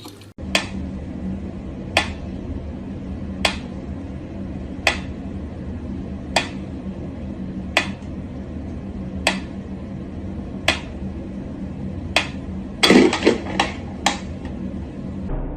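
Sharp single knocks or taps at an even pace, about one every second and a half, over a steady low hum, then a quick flurry of louder knocks a little before the end.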